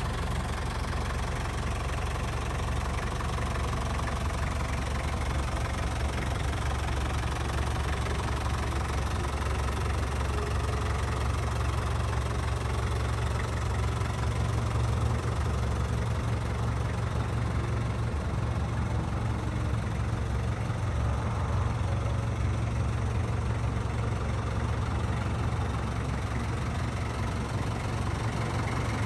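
The Nissan TD27 four-cylinder diesel engine of a 1992 Nissan Caravan van idling steadily.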